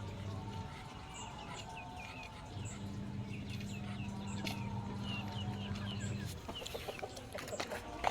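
Chickens clucking with many short, high chirps, over a low steady hum that stops about six seconds in.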